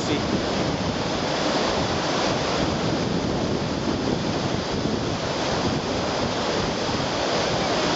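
River rapid: white water rushing steadily over and between boulders.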